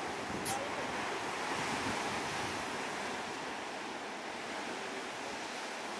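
Rough sea surf breaking against the rocks and a grounded ship's hull: a steady rush of waves, with some wind.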